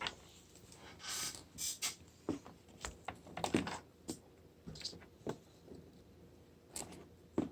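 Small plastic toy packaging and accessories being handled: irregular crinkles, rustles and light clicks.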